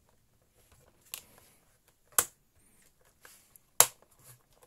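Three sharp clicks and knocks, the last the loudest, as the stand is lowered onto the back of an all-in-one PC and its hooks seat in their holes, with light handling of the parts between.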